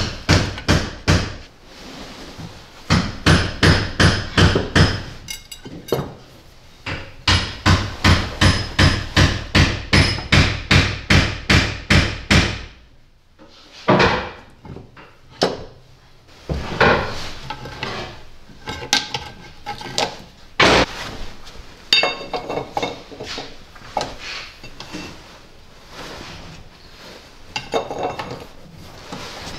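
Hammer blows on metal in quick runs of about three strikes a second, each with a slight ring, stopping about halfway through. Scattered clanks and clicks of metal parts being handled follow.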